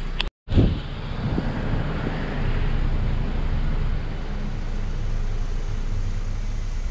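Honda Civic's engine idling steadily in the background, a low even hum. Just after the start the sound cuts out for a moment and comes back with a short knock.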